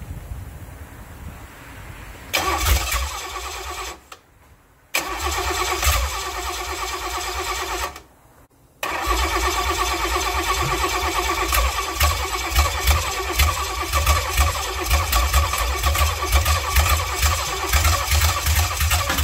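Rebuilt Mercedes M127 inline-six turning over on its starter during a first start attempt after the rebuild: two short spells of cranking with pauses between, then a long continuous spell from about nine seconds in.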